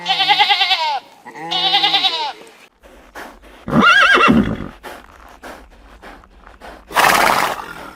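Animal calls: two quavering calls in the first couple of seconds, then a shorter call that rises and falls in pitch about four seconds in, and a harsh noisy blast about seven seconds in.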